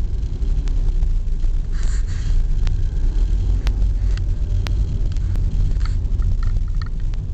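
Road and engine noise heard from inside a moving car: a steady low rumble with a few faint clicks.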